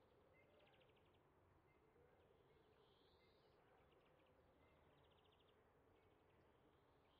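Near silence, with faint, rapid insect-like chirping in short trains every second or two and a faint rising whistle about three seconds in.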